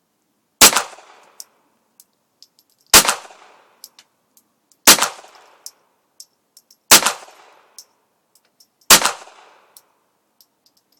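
Five single gunshots from a firearm, about two seconds apart, each followed by a short echoing tail, with faint clicks between shots.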